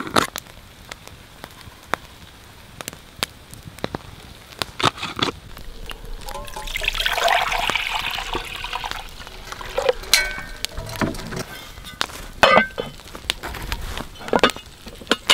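Liquid poured from a metal pan into a cast-iron pot, a splashing pour of about two seconds beginning midway through. It is followed by several metal clanks with a short ring as the cast-iron lid is set on the pot.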